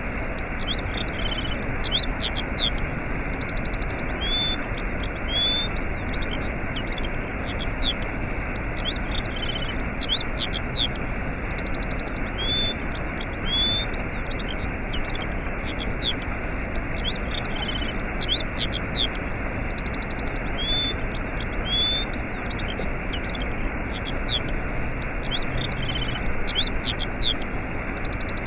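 Waterfall rushing steadily, with small birds chirping over it in quick sweeping chirps and short trills. The same run of bird calls comes round again about every eight seconds.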